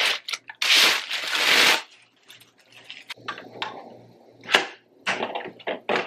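Plastic bag crinkling loudly for about a second as it is pulled off a vacuum handle, then scattered plastic clicks and knocks as the handle is fitted into the top of the vacuum body, with one sharp click about four and a half seconds in.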